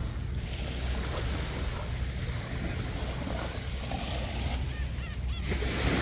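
Small sea waves washing onto a pebbly shore over a steady low rumble, with a louder wave breaking near the end.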